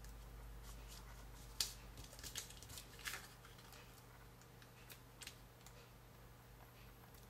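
Faint light clicks and paper rustles from handling a sheet of 3D foam adhesive pads and peeling pads off its backing paper. The sharpest click is about a second and a half in, with a quick cluster just after and a couple more near the middle.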